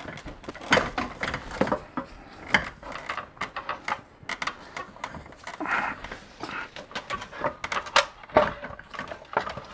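E46 BMW oil pan being wiggled and worked loose from under the engine, with irregular clicks, clunks and a little scraping of metal against metal as it is eased down past the cooler hoses.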